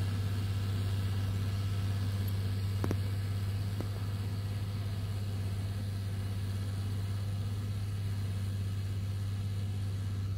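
Steyr 1100 tractor's diesel engine running steadily at a distance while sowing grain with a seed drill, a low steady drone. A small click comes about three seconds in.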